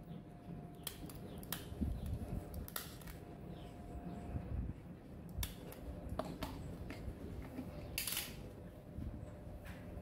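Scattered sharp clicks, a second or so apart, from a small handheld tool being worked close to the microphone, over low rustling of handling, with a brief hiss about eight seconds in.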